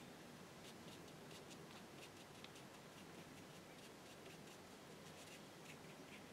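Faint, irregular taps and scratches of a paintbrush dabbing paint onto watercolour paper, over low room hiss.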